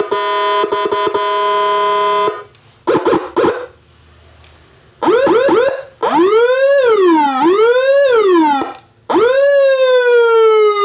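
Electronic 12-sound siren module on its low-frequency setting, played through a 25-watt Narae speaker, stepping through its tones: a steady horn-like tone for about two seconds, a few short chirps, a quick run of rising yelps, two slow rising-and-falling wails, then a rise into a long, slowly falling tone.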